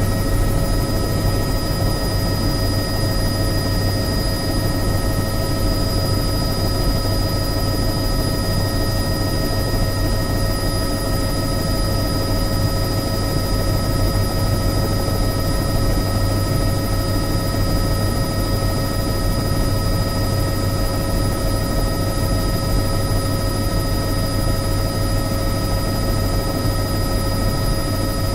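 Helicopter running steadily, a low rumble with several steady high-pitched tones over it and no change in speed or level.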